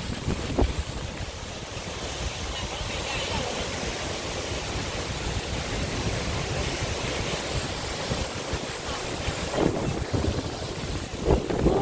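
Seljalandsfoss waterfall's steady rush of falling water, with wind buffeting the microphone in low gusts.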